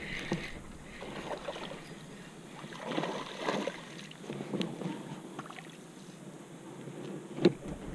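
A small hooked largemouth bass splashing at the water's surface in short, irregular bursts as it is reeled to the bank, with one sharp knock near the end.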